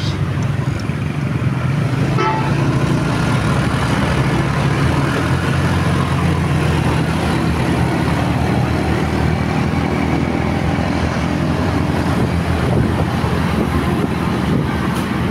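Motorcycle riding through town traffic: steady engine and road noise, with a short vehicle horn toot about two seconds in.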